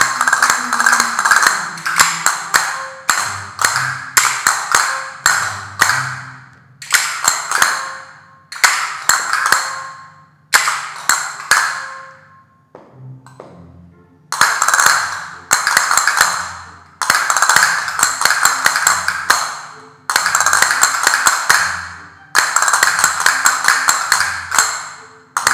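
A group of castanets played together in repeated phrases of rapid clicking, each about two seconds long, starting loud and fading, with a brief lull near the middle. Background music plays underneath.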